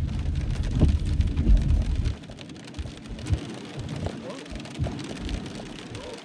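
Heavy rain pattering on a car's roof and windshield in a downpour, heard from inside the car. A loud low rumble of tyre and road noise runs under it and drops away suddenly about two seconds in.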